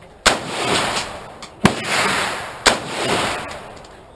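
Three sharp, loud bangs about a second apart, each followed by a long echo that dies away.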